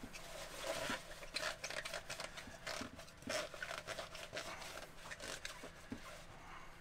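Paper towel rubbing and crinkling against the inside of a clear fuel filter bowl as it is wiped out: irregular short scrapes and crackles.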